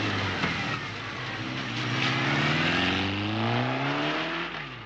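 Motorcycle engine revving as it accelerates away, its pitch rising steadily for about three seconds before fading near the end.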